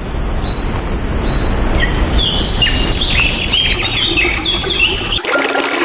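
Birds chirping, with many short whistled notes that slur up and down, over a loud low rushing noise. About five seconds in, both cut off abruptly and background music begins.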